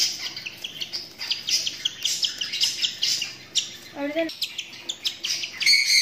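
Lutino cockatiel giving quick, repeated high chirps while being hand-fed formula from a syringe: the feeding calls of a hand-fed bird.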